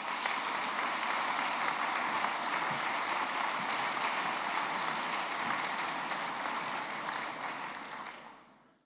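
A large audience applauding, a dense steady clapping that fades out near the end.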